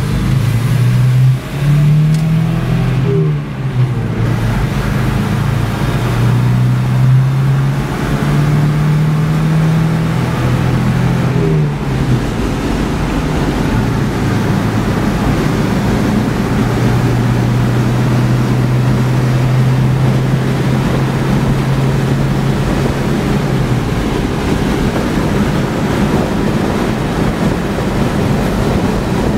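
Engine of a 1980s Toyota SR5 4x4 pickup heard from inside the cab, accelerating through the gears. The engine note climbs and drops at an upshift about three seconds in, then climbs again and drops at another upshift around twelve seconds. It holds a steady cruising drone until it fades about twenty-four seconds in, leaving road and wind noise.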